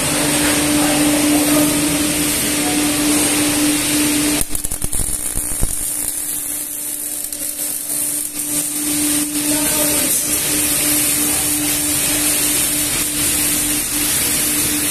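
Steady hum of workshop machinery with a constant tone. From about four and a half seconds in, the hum gives way for about five seconds to the irregular crackle of a MIG welding arc, then comes back.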